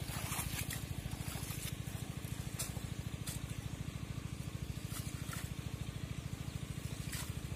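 A small engine running steadily, a low hum with a rapid, even beat. A few short crackles sound over it.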